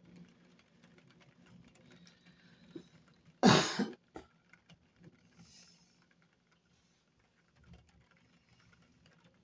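Rain pattering lightly on a window pane as many faint scattered ticks. About three and a half seconds in there is one short, loud burst of noise lasting about half a second.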